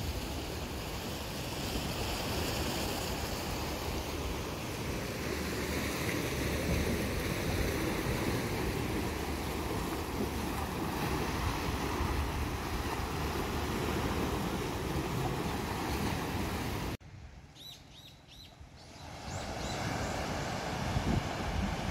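Sea waves washing and foaming over shoreline rocks, with wind buffeting the microphone. About seventeen seconds in the sound cuts off suddenly to a quiet stretch with a few short high chirps, then the surf and wind rise again.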